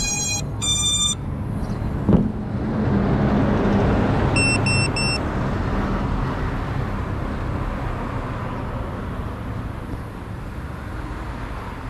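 Electronic beeps: a quick run of high beeps at the start and three short, evenly spaced beeps about four and a half seconds in. Under them, road traffic noise swells after a knock about two seconds in and then slowly fades, as a vehicle passes.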